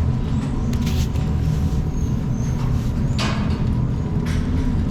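A steady low motor rumble, with a few brief knocks or rattles about a second in, after about three seconds and after about four.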